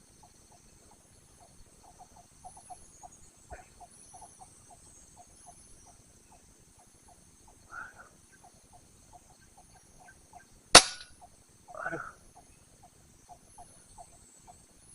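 A single sharp rifle shot about ten seconds in, over a steady faint rhythmic ticking of about four clicks a second from a calling insect or frog, with two brief softer sounds before and after the shot.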